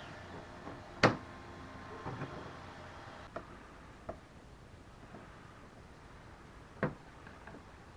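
Hands sorting through a box of O-rings and small parts: a few scattered clicks and knocks, the sharpest about a second in and again near the end.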